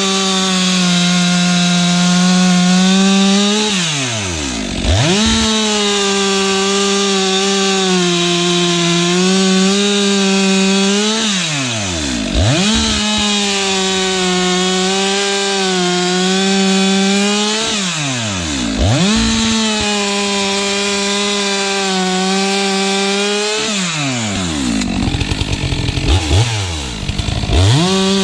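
Stihl MS462 two-stroke chainsaw with a freshly hand-filed chain bucking logs: four cuts at full throttle, each several seconds long, with the engine dropping to idle and revving back up between them. Near the end come a few short throttle blips.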